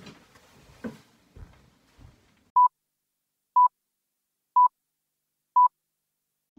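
A few faint knocks, then four short, identical electronic beeps on one steady tone, evenly spaced one second apart, with silence between them.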